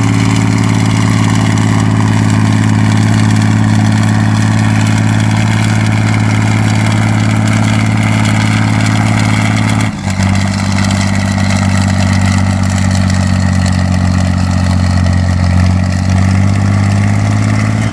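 Antique Case tractor engine running hard under load while pulling a weight-transfer sled. About ten seconds in, its note drops abruptly to a lower pitch with a brief dip in loudness, then rises slowly near the end.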